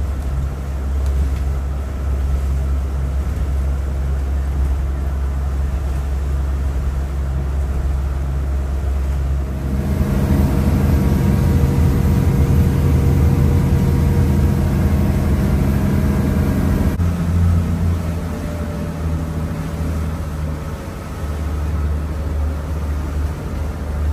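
Fleming motor yacht's engines droning steadily under way, heard from the helm, with wind and water noise. The low drone shifts in tone about ten seconds in and again near seventeen seconds.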